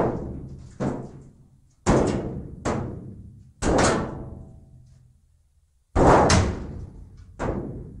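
Hollow blows struck on the side of a steel dumpster, about seven in all at uneven spacing. Each blow booms and rings out for a second or more, one around three and a half seconds in with a clear metallic ringing tone, and two come in quick succession near six seconds.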